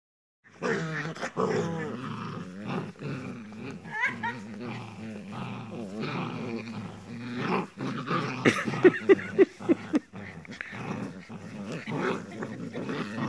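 Several puppies growling in play as they tug at a rag together, with a quick run of about five short, loud yaps roughly nine seconds in.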